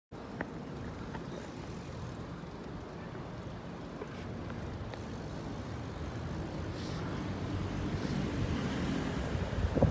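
Wind buffeting a phone microphone held out by a moving cyclist, mixed with road noise, with a few faint clicks; it slowly grows louder toward the end.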